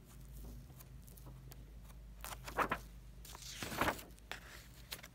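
Paper rustling as the pages of an old hardback book are turned: two short swishes a little past halfway.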